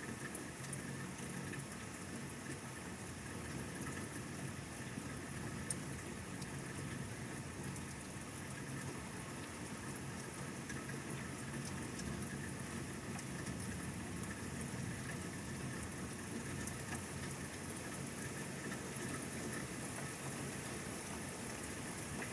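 Steady rain falling, an even hiss with a few scattered drop ticks and one sharper tick about six seconds in.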